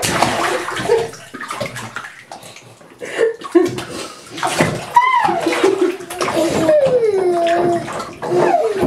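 Bathwater splashing and sloshing around a baby in a bathtub. About five seconds in, a long vocal sound glides slowly down in pitch, followed by shorter vocal sounds.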